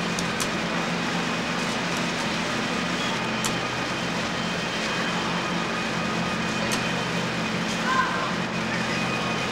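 Steady hum and noise of bakery production-line machinery, with a few faint clicks.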